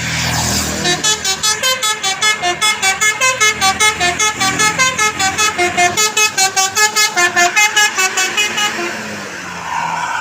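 Basuri telolet multi-tone bus horn playing a fast melody of short notes, about six a second, for roughly eight seconds over the bus's engine, after a brief rush of noise at the start.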